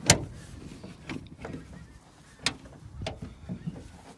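Bonnet of a Ford Transit being opened: a sharp clunk as the catch releases, then a few lighter knocks and clicks as the bonnet is handled and lifted.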